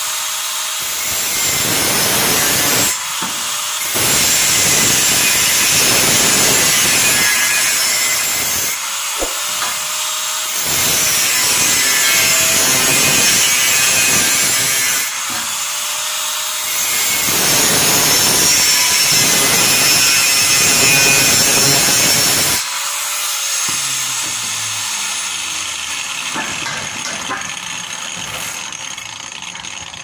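Makita angle grinder cutting through a metal bar, a loud high grinding whine. It dips briefly three times as the disc eases off the cut, then drops to a quieter, tapering run about three-quarters of the way through.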